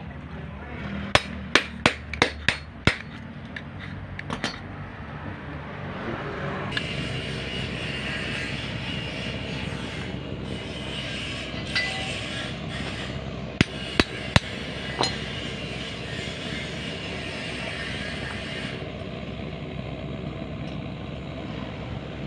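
Sharp metallic taps during a solenoid repair: a quick run of about six, then two more a second or so later. A steady noise then sets in for about twelve seconds, with a few more single clicks.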